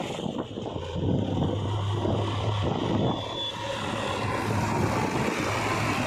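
Diesel engine of a JCB 3DX backhoe loader running steadily as it drives along a road, a low drone under rushing wind noise.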